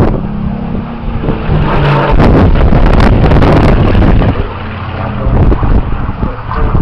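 Spitfire Mk XIX's Rolls-Royce Griffon piston engine running at display power as the aircraft flies past, loud for about four seconds and then fading.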